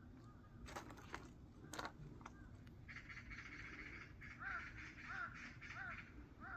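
A bird calling outdoors in a series of short, arched calls, about one every 0.7 seconds, starting about four and a half seconds in. There are a few sharp clicks or knocks near the start.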